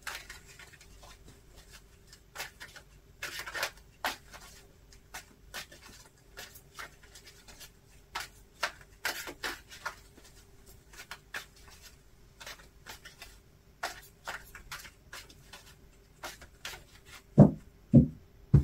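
A deck of tarot cards being shuffled by hand, overhand, giving an irregular patter of soft card slaps and rubs. Near the end come two louder thumps a little over half a second apart.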